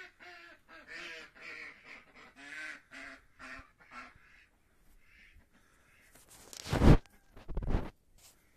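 Domestic duck quacking, a run of about eight quacks over the first four seconds. Then two loud blasts of rumble on the microphone, about a second apart.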